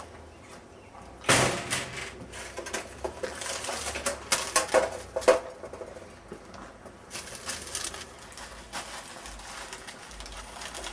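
A newspaper slaps down onto concrete steps about a second in, followed by irregular crackling and rustling.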